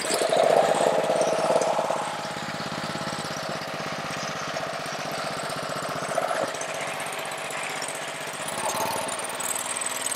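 Honda engine of a Ryobi 3100 PSI pressure washer running with the choke open on a test start after carburetor cleaning, a little louder for the first couple of seconds, then running steadily.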